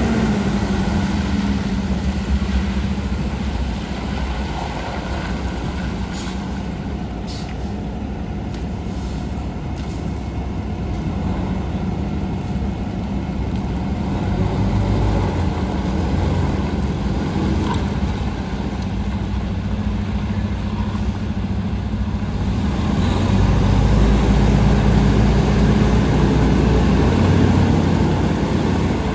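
2012 Western Star 4900 SA rear-load garbage truck's diesel engine running as the truck drives slowly across the lot. It gets louder and deeper for a few seconds near the end.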